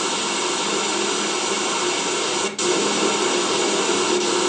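Spirit box radio scan putting out a steady rush of white-noise static, briefly cutting out about two and a half seconds in as it jumps between stations.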